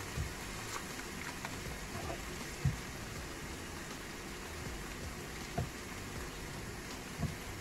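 Steak searing in a hot pan: a steady sizzle, with a few faint pops or knocks.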